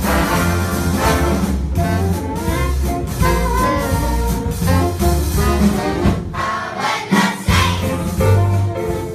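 A jazz band with trumpets, trombones and saxophones playing a swing tune, started by a count-off.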